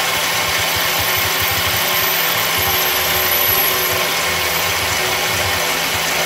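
Small benchtop metal lathe running steadily while a drill held in the tailstock chuck is fed into the spinning workpiece, with a faint wavering high whine above the motor.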